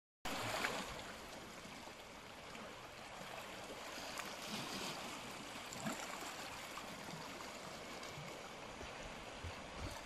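Calm sea water lapping around rocks near the shore: a soft, steady wash of small waves with a few faint splashes.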